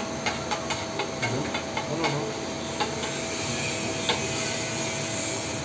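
Chopped filling sizzling on a large flat steel griddle while a metal spatula taps and scrapes across the plate: a quick run of clicks in the first two seconds, then fewer, with one sharp knock about four seconds in.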